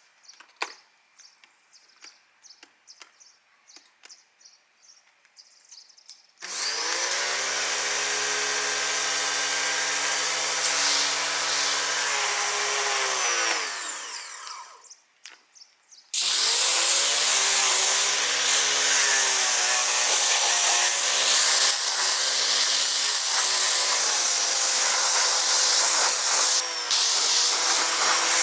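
Electric pressure washer starting up about six seconds in and running with the water jet hissing. Its motor winds down with falling pitch when the trigger is let go, then restarts about two seconds later and runs on, its pitch dipping and recovering under changing load. Before it starts there are only a few faint ticks.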